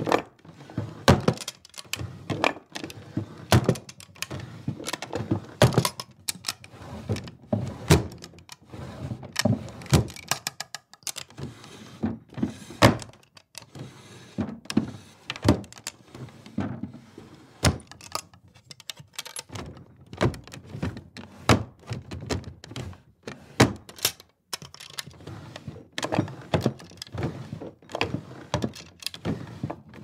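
Wooden dresser drawers repeatedly slid open and pushed shut, wood scraping in the runners and knocking as the drawers hit their stops, with brief pauses between runs.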